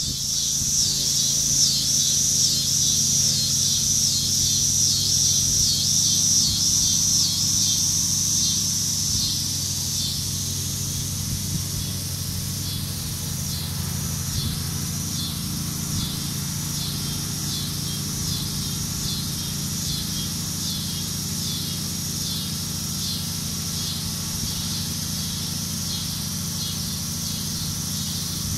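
Insects calling outdoors: a high-pitched pulsing buzz that repeats evenly at about two pulses a second and is louder in the first ten seconds. A steady low hum runs underneath.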